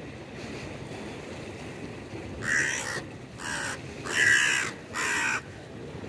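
Hooded crow cawing four times in quick succession, harsh calls each about half a second long, beginning about two and a half seconds in.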